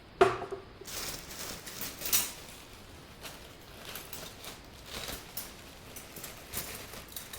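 Handling noise of tools being picked through: a sharp knock about a quarter second in, another near two seconds, then scattered light clicks and taps.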